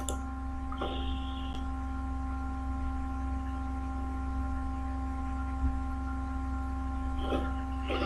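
Steady electrical hum with several high, unwavering whine tones from the recording setup. A mouse click comes at the start, with a few faint clicks and taps later.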